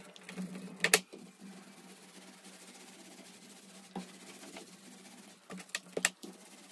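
Small paint roller being loaded and worked on plywood: a series of sharp clicks and knocks, the loudest about a second in and a cluster around six seconds in, over a low steady hum.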